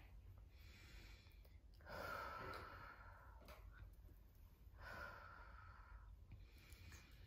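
A person's slow breathing, very quiet: two long breaths, one about two seconds in and one about five seconds in, over a faint low hum.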